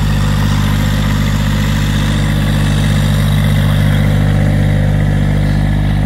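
Massey Ferguson compact tractor's engine running steadily at an even speed as the tractor drives with its front loader.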